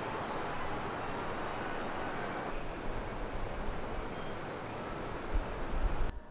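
Insects chirping in a rapid, even, high-pitched pulsing over steady background noise, with a few low rumbles near the end.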